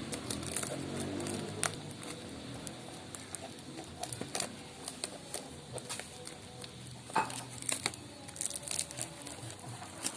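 Packaging crinkling and rustling as it is handled during unboxing, with scattered sharp clicks and crackles.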